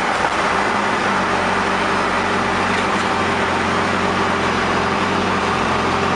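Engine of a stripped-out competition car heard from inside its bare cabin, loud and held at fairly steady revs while driving, with dense road and mechanical noise.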